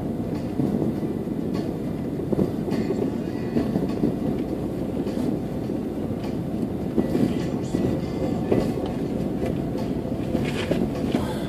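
Car cabin noise while driving through town: a steady low rumble of the engine and tyres on the road, with a few light knocks or rattles scattered through it.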